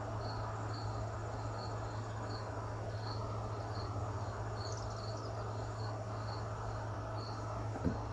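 A cricket chirping steadily, about two short high chirps a second, over a constant low hum. A small knock near the end.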